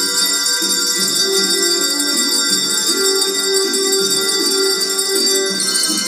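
Handbells and handchimes played by a bell choir: a tune of ringing notes, several sounding together as chords, changing every fraction of a second.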